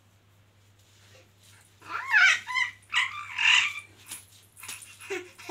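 Baby squealing in high-pitched, excited bursts about two seconds in, with a few shorter, softer vocal sounds near the end.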